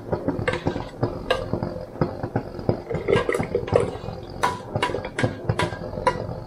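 A utensil clinking and scraping against a stainless steel pot as strawberry jam is ladled and scraped out into a glass jar through a funnel: a run of sharp metal knocks, thickest in the second half.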